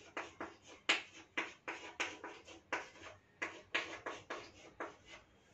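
Chalk writing on a chalkboard: a quick, uneven run of short taps and scratches, about four strokes a second, stopping just before the end.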